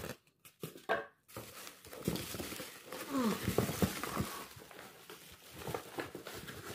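Plastic bubble wrap crinkling and a cardboard box rustling and scraping as a wrapped helmet is worked out of its shipping box, in short irregular bursts.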